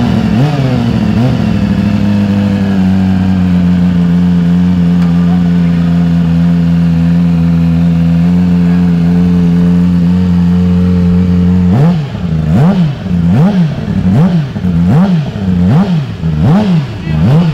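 Yamaha R6's 600 cc inline-four on its stock exhaust, blipped twice, then idling steadily. About twelve seconds in it is revved in a quick run of short throttle blips, each rising and falling in pitch, several a second apart.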